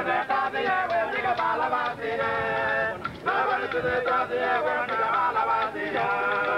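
Group of men singing a chant together, the lines of voices breaking off briefly about three seconds in and again near the end before the next phrase starts.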